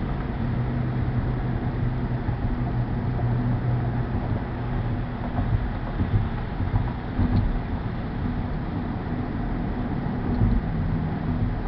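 Steady drone inside a car cruising on a motorway: tyre and road noise with a constant low hum, unchanging throughout.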